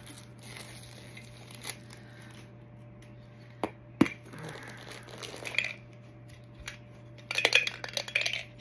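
A metal Funko Soda can being opened by hand. Scattered sharp clicks and clinks include one loud snap about four seconds in, then a burst of metallic rattling and scraping near the end.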